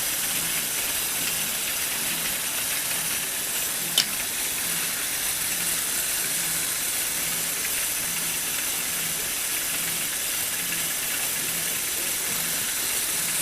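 Electric motor and plastic gearing of a motorized Lego Technic car running steadily: a continuous high whirring hiss with a faint low pulse repeating about every two-thirds of a second. One sharp click about four seconds in.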